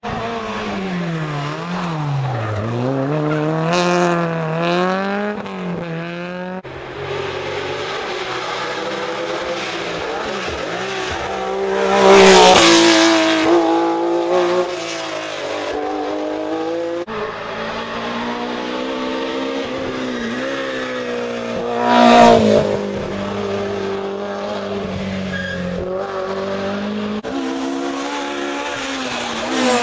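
Historic rally cars at full throttle on a tarmac stage, several in turn, with the sound changing abruptly from one to the next. Each engine revs up and drops back through gear changes and lifts. The loudest moments are two cars passing close, about twelve and twenty-two seconds in. The last is a Ford Escort RS Mk2.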